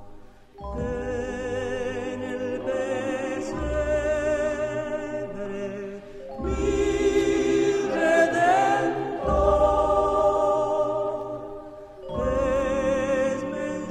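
Music: voices singing long held notes with wide vibrato over a low sustained accompaniment, in phrases broken by short pauses about half a second in, around six seconds in and near twelve seconds.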